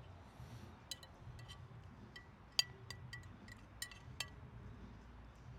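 Cutlery clinking against a plate during a meal: a scattered series of sharp clinks that each ring briefly at the same pitch, the loudest about two and a half seconds in.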